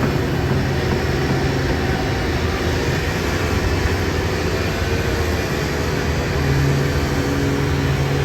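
Heavy construction machine's engine running steadily with a low hum, growing a little louder about six and a half seconds in.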